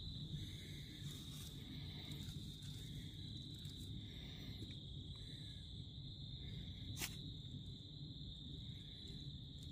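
Steady high-pitched insect chorus, unbroken and even, over a faint low rumble, with a single sharp click about seven seconds in.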